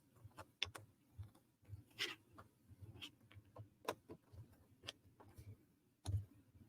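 Small wooden puzzle pieces clicking and tapping together as they are handled and fitted, in irregular light clicks with a few soft thumps.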